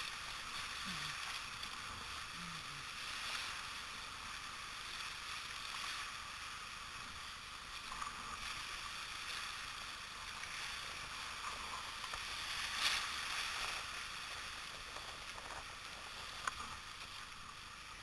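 River rapids rushing, a steady hiss of whitewater, with a few brief splashes, the sharpest about two-thirds of the way through.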